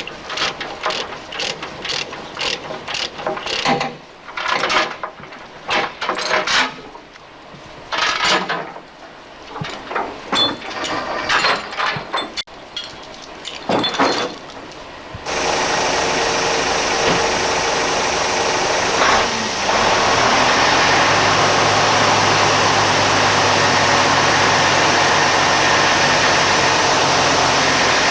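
Bursts of ratchet clicking for about fifteen seconds. Then an engine comes in suddenly and runs steadily.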